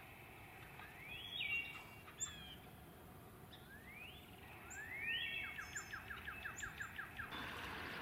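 A small songbird singing faintly: a few rising whistled notes, the last one running into a quick trill of about six repeated notes a second, with a few thin high chips between.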